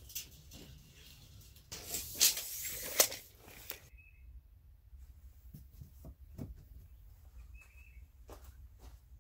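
Clothing rustling against the microphone, with a few sharp clicks, for about two seconds; then quieter, with a few faint footsteps on gravel and two short high chirps.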